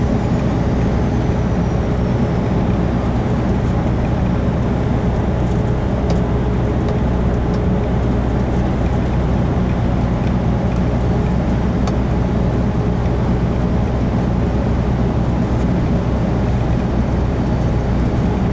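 Steady drone of a semi-trailer truck's diesel engine with tyre and road noise, heard from inside the cab while cruising at an even speed on a two-lane road.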